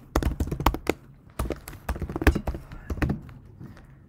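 Typing on a computer keyboard: irregular keystroke clicks in two quick runs, with a short pause about a second in, thinning out near the end.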